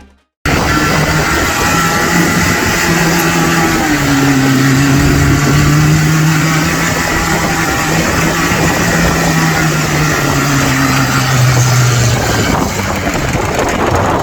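Off-road 4x4 vehicle's engine running at held, high revs, with a dense rushing noise over it; the engine note wavers slightly and drops away about twelve seconds in.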